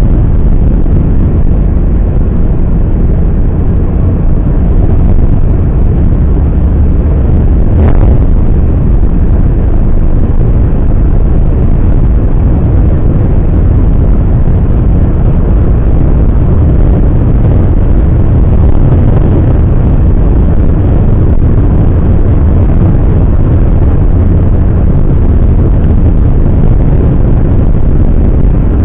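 Car driving along a road: a loud, steady low rumble of road and wind noise.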